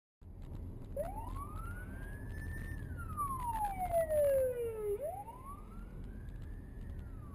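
Police car siren wailing in slow rising and falling sweeps, each about four seconds long, starting about a second in. Steady road and engine noise from the following car runs underneath.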